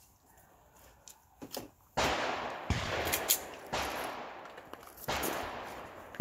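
A string of handgun shots: quiet at first, then a few single shots at uneven spacing starting about two seconds in, each trailing off slowly.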